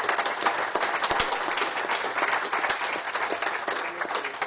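Audience applauding: many people clapping together in a dense, even patter that tails off near the end.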